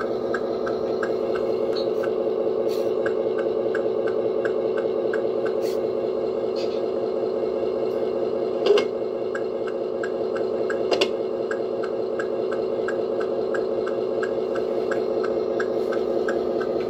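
RC model truck's sound module playing a diesel engine idle through its small speaker: a steady drone with a light regular tick about two and a half times a second. A sharp knock comes about nine seconds in and a quick double knock near eleven seconds.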